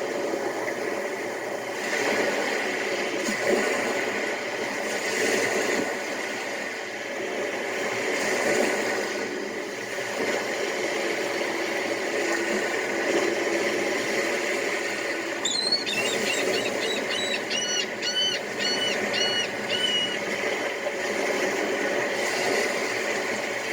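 Beach ambience: a steady wash of surf swelling and easing every few seconds. About two-thirds of the way through, a bird calls in a quick run of about seven repeated high notes.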